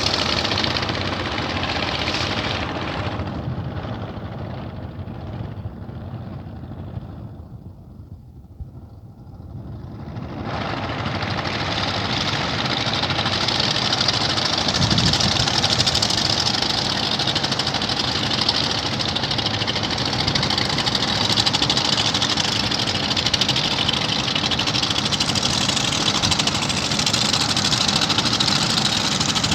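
A fishing boat's engine running. Its sound falls away to a low ebb about eight seconds in, then picks back up within a few seconds and runs steadily loud.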